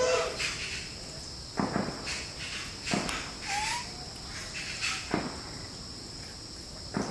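A few soft knocks, spaced irregularly every one and a half to two seconds, over a steady high-pitched hum, with one short rising squeak about halfway through.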